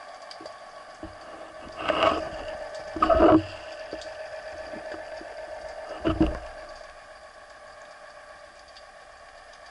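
Underwater sound through a camera housing on a speargun during a breath-hold dive: a steady hum with three louder swishing surges of water about two, three and six seconds in, the one near three seconds the loudest.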